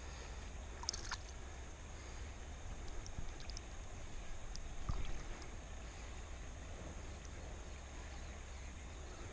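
Flowing river water with a few small splashes and knocks, about a second in and again near five seconds, as a small rainbow trout is handled and unhooked in the water.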